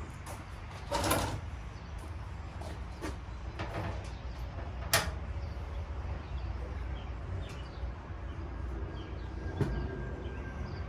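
Hand tools and clamp hardware being worked against the truck's firewall: scattered clicks and knocks, with a short scrape about a second in and a sharp metallic click about five seconds in, over a steady low rumble.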